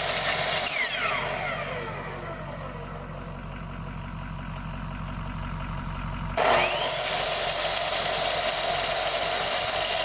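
Electric chop saw run off a power inverter: its motor winds down with a falling whine after being switched off, then is switched back on about six seconds in and spins up with a rising whine to run at full speed, drawing a starting surge of current. A diesel truck engine idles steadily underneath.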